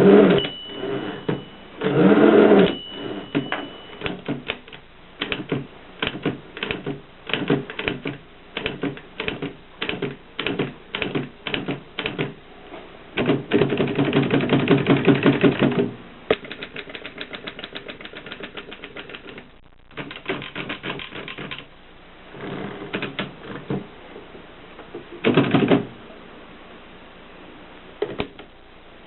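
Mercedes manual typewriter being typed on: separate key strikes several a second, with a few bursts of faster, denser clatter.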